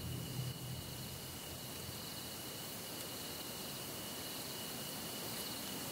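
Insects chirring steadily at dusk: two high, unbroken trills over a faint hiss.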